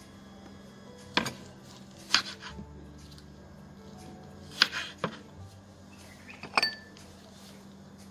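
Kitchen knife slicing a red onion on a wooden cutting board: five separate sharp knife strikes against the board, irregularly spaced one to two seconds apart.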